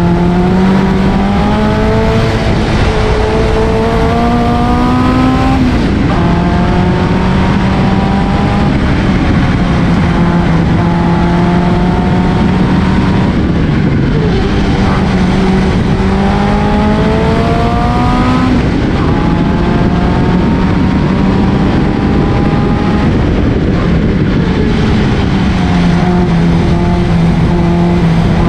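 Reliant 750cc OHV four-cylinder engine of a Jeffrey Mk3b historic sports racing car under hard acceleration, its note climbing through the revs and dropping back at gear changes and braking, several times over. Wind and road rush fill the open cockpit behind it.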